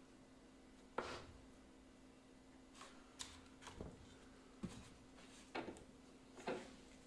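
Scattered light clicks and knocks of things being handled on a workbench, about eight in all, the sharpest about a second in.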